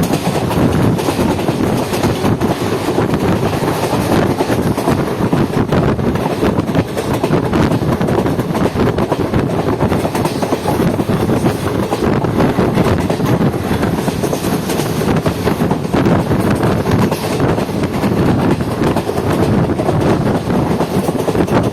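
Intercity express passenger train running on the rails, heard from aboard: a steady, loud rumble of wheels on track with some clatter.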